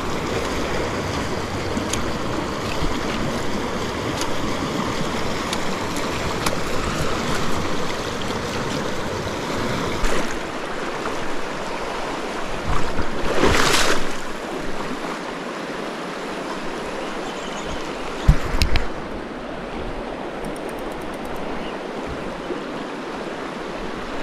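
River current rushing steadily around a wading angler, with a louder swish a little past the middle and a brief sharp knock about three-quarters of the way through.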